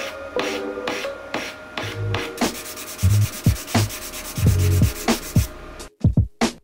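A kebiki part being hand-sanded, rubbed back and forth on sandpaper in quick rasping strokes, about two to three a second. A few short clicks follow near the end.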